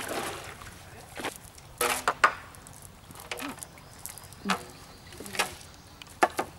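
Irregular sharp knocks and taps against a round tub boat as a wet cast net is hauled in, about half a dozen, a few of them ringing briefly.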